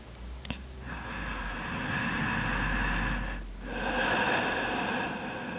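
A person breathing slowly and deeply, close to the microphone. There are two long breaths, each lasting about two seconds, with a short pause between them, and a small click just before the first.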